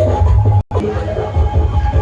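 Loud bass-heavy dance music from a huge outdoor 'horeg' stack sound system, with a pounding low end. It cuts out for an instant about half a second in, then carries on.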